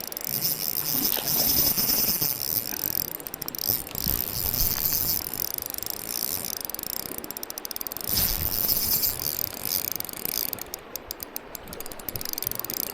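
Fishing reel clicking in runs of rapid ratcheting ticks while a hooked steelhead is being played, over a steady rush of water.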